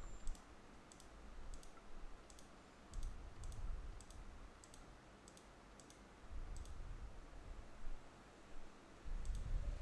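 Faint, scattered clicks of a computer mouse and keyboard as a fraction expression is typed into an editor, with a few soft low bumps in between.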